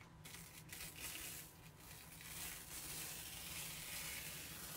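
Adhesive silk-screen transfer sheet being peeled slowly off a painted wooden cutout: a long soft peeling rustle that grows louder toward the end.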